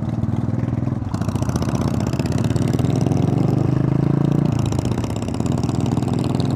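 Buell Blast's single-cylinder engine running, heard close up. About a second in, it is out on the road with wind rushing over the microphone. The engine note climbs, then drops back about four and a half seconds in.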